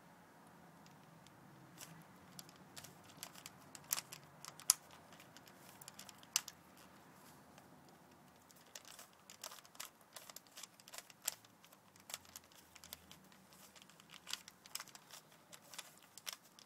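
A Rubik's cube being turned by hand: irregular plastic clicks and clacks of its layers snapping round, scattered at first and coming thick and fast in the second half, in the final moves of a solve.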